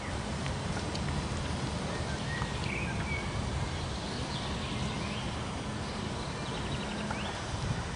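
A steady low rumble with faint, short bird chirps and whistles above it, a few at a time, about two and a half seconds in and again near the end.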